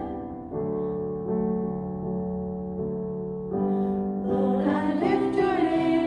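Keyboard playing held piano chords of a worship song, then women's voices come in singing about four seconds in.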